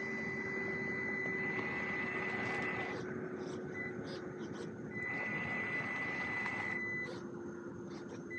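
Traxxas TRX-4M RC crawler driving over grass: its small electric motor and gears run with a steady high whine over a rushing noise. The whine stops for a couple of seconds partway through and cuts out again near the end.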